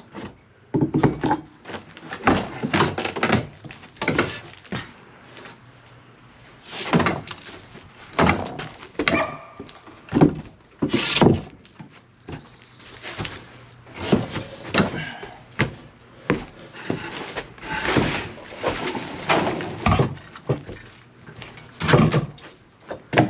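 A wooden baseboard being worked loose and pulled off a porch frame: a run of irregular knocks and thunks of wood on wood.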